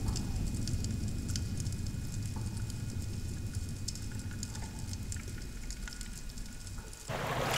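Underwater sea ambience: a steady low rumble with scattered faint clicks and crackle. About seven seconds in it gives way suddenly to a louder rushing hiss of water and wind at the surface.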